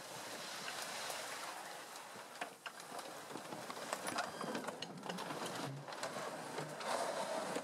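MTT-136 robotic tracked vehicle driving over brush and snow: a steady mechanical whir from its drive and tracks, with scattered clicks and crackles of twigs and branches scraping past.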